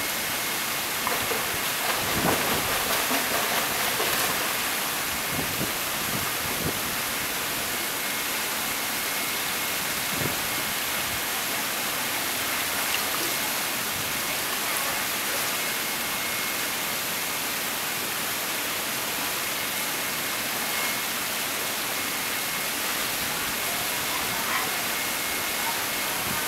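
Steady rush of running swimming-pool water, with a faint steady high whine behind it.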